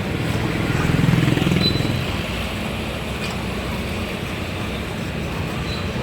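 Steady low motor-like rumble with a humming pitch, swelling briefly about a second in and then settling, over general street noise.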